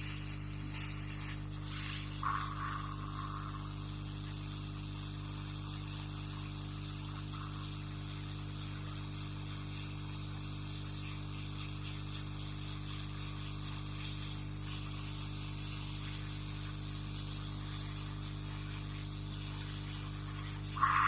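Steady airflow hiss of a hot air rework gun heating the motherboard, over a constant low electrical hum.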